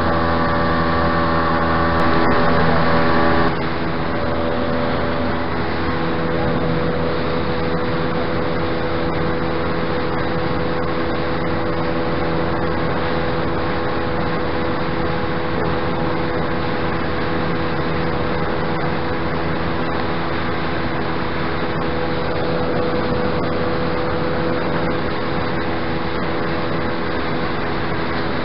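Tohatsu outboard motor driving the boat at steady cruising speed: a continuous engine drone over the rush of water and wind against the hull. The sound changes abruptly about three and a half seconds in, losing its brighter upper tones, then runs evenly.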